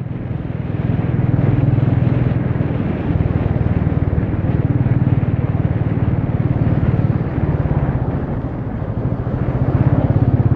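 Royal Enfield Meteor 350's single-cylinder engine and exhaust running while the bike is ridden at road speed: a steady low note made of fast, even firing pulses. It eases off a little about eight seconds in, then picks up again near the end.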